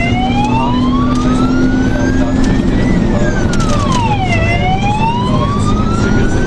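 Fire engine's electronic wail siren heard from inside the cab, its pitch climbing slowly and then dropping quickly, about every four and a half seconds. The truck's diesel engine drones steadily underneath.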